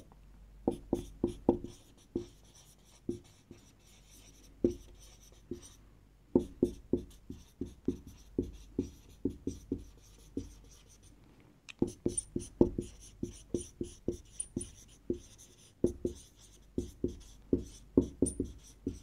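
Marker pen writing on a whiteboard: quick runs of short strokes and taps as a line of text is written out, with a few brief high squeaks in the second half.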